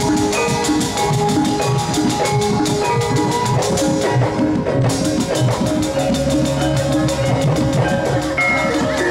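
Javanese gamelan music: drums keep up a fast, even beat under the ringing tones of bronze metallophones.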